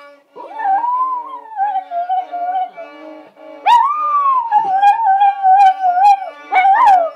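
Border terrier howling along to music: two long howls, each sliding up and then slowly down in pitch, then a short third one near the end, over held musical notes.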